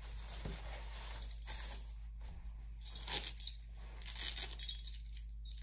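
Small metal dog-harness and leash hardware clinking and jingling as it is handled and fastened on a small dog, in scattered short chinks, with the loudest cluster about four and a half seconds in.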